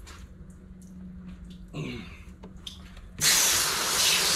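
Garden hose spray nozzle spraying water onto a cutting board to rinse it, a loud steady hiss starting about three seconds in, after a few faint handling sounds.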